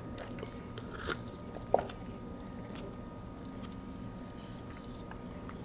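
Faint chewing and mouth sounds of a person eating salmon and rice, with two short clicks about one and nearly two seconds in.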